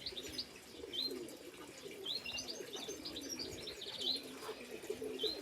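Racing pigeons cooing low and continuously, with short, high, rising chirps from small birds over the top.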